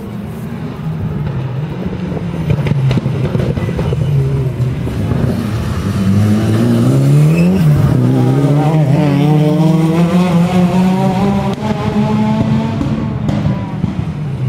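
Honda Civic rally car's engine drawing near with the revs rising, then dropping sharply about seven and a half seconds in as it brakes into the corner. It then accelerates hard away, the engine note climbing steadily, with a gear change near the end.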